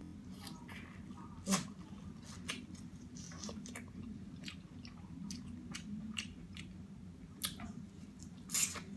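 Close-up eating sounds of seafood: wet chewing and mouth smacks with irregular sharp clicks and cracks, the loudest about a second and a half in and near the end.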